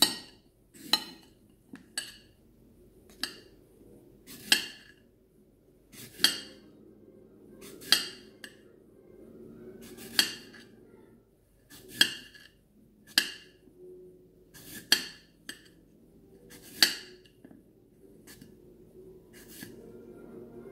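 Kitchen knife clinking against a ceramic plate while an apple is sliced on it: sharp clinks at an uneven pace, about one every one to two seconds, growing fainter near the end.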